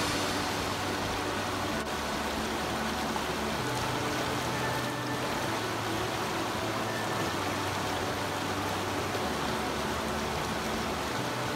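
Rushing water of a shallow rocky mountain trout stream, a steady hiss running over riffles.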